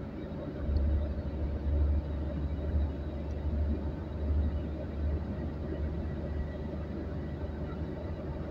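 Road and engine noise inside a moving car on a highway: a steady hum with a deep rumble that is heavier through the first half and then eases.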